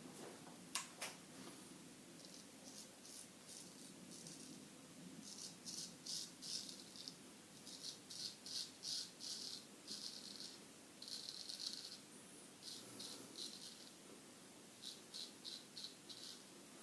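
Solingen H. Geffgen 6/8 straight razor scraping through whiskers in runs of short, quick strokes, faint and crackly, over a shave cream lather that gives almost no slip.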